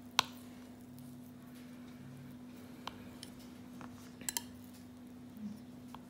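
A kitchen knife cutting a pastry edge against a ceramic dinner plate: a few sharp clicks of the blade on the plate, the loudest right at the start and a quick pair about four seconds in, over a steady low hum.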